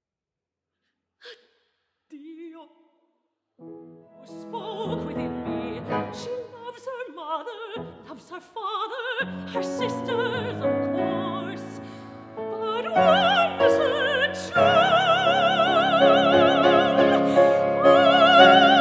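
Mezzo-soprano singing an opera aria with grand piano accompaniment, coming in after about three seconds of near silence. In the second half she holds louder, higher notes with wide vibrato.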